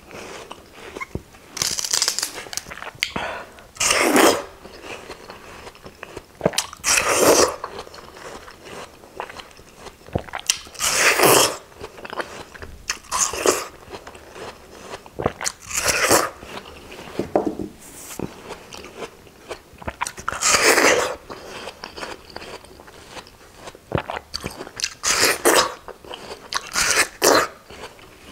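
Bites into juicy watermelon slices: about ten wet, crunchy bites a couple of seconds apart, with quieter chewing between them.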